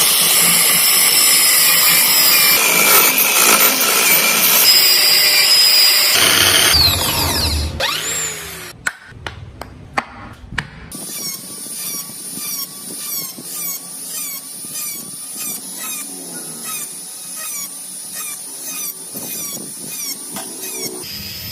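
Power tools working wood: a loud grinding tool runs for about six seconds and then stops. After a few clicks it gives way to quieter, rhythmic rasping with a whine that wavers in pitch with each stroke.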